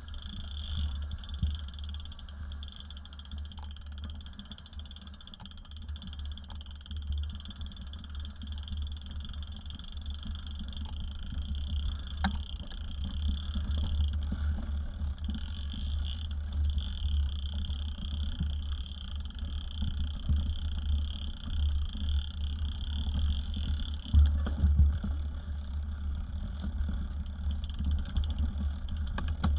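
Mountain bike rolling over a leaf-strewn dirt trail, picked up by a camera mounted on the bike: a steady low rumble of wind and trail vibration that rises and falls with the terrain, with a steady high-pitched buzz running over it.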